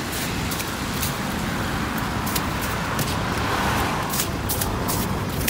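Road traffic on a busy street: steady car and tyre noise, with one vehicle passing loudest about three to four seconds in. Short faint clicks run over it.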